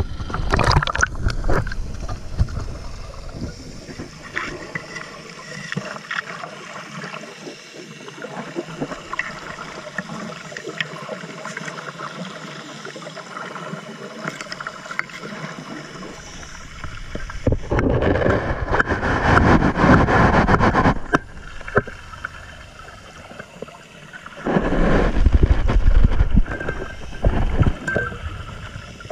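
Underwater sound around a scuba diver working a suction-dredge hose on bedrock: scattered small clicks and knocks, with two long loud rushes of regulator exhaust bubbles, about seventeen and twenty-five seconds in. Splashing and sloshing at the very start as the microphone goes under the surface.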